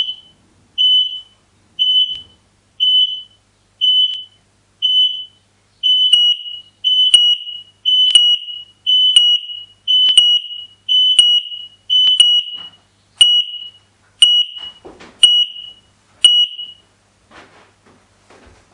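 Linked X-Sense smoke and carbon monoxide alarms sounding in alarm mode with loud, high beeps about once a second. About six seconds in a second alarm joins slightly out of step, so each beep comes doubled, and the beeping stops near the end.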